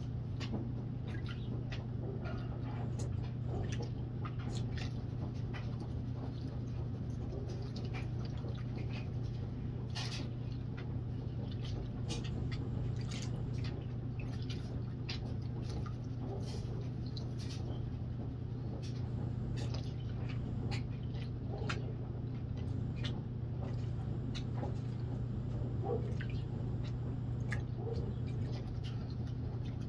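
Muddy water sloshing and splashing as a plastic classifier screen is swished in a gold pan, with many small irregular clicks of gravel and plastic. A steady low hum runs underneath.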